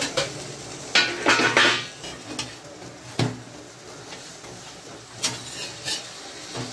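Steel spatula clinking and scraping against an iron tawa as a toasted sandwich is lifted and turned over. The sounds are separate clinks and scrapes, a quick cluster about a second in and then single clinks spread over the rest.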